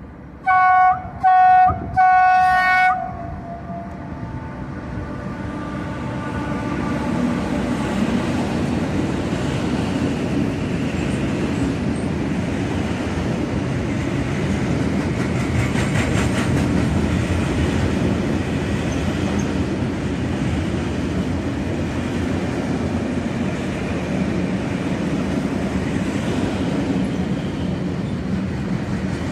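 Electric freight locomotive's horn sounding three blasts, the middle one shortest, in the first three seconds. Then the rumble of a long freight train of covered sliding-wall wagons passing close by, growing louder over the next few seconds and then holding steady, with wheels clacking over the rail joints.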